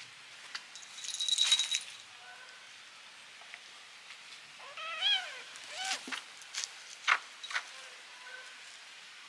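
Kittens play-fighting. A noisy scuffle with a high squeak comes about one and a half seconds in. One short, high kitten mew rises and falls about five seconds in, followed by a few sharp taps and scuffs.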